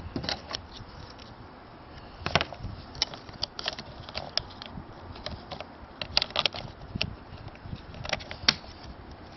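Irregular clicks and taps of hands handling a small plastic battery-powered toy, its switch being flipped, with no motor running: the toy is dead.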